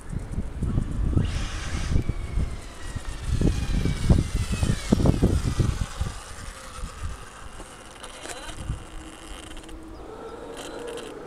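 Radio-controlled buggy's motor whining, its pitch rising and falling as it speeds and slows on asphalt. Under it, irregular low rumbling and thumps through the first half fade out after about six seconds.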